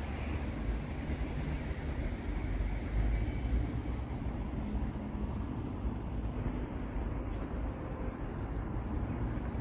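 Wind buffeting the microphone on an open rooftop: an uneven, gusting low rumble.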